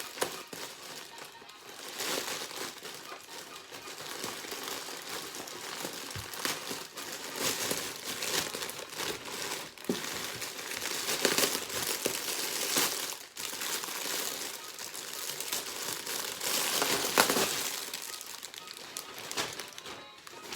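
Packaging being handled and opened, crinkling and rustling unevenly, louder and softer in turns.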